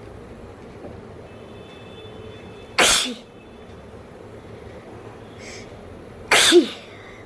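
A woman sneezing twice, about three and a half seconds apart, each a short, sharp burst; the second trails off in a falling voice.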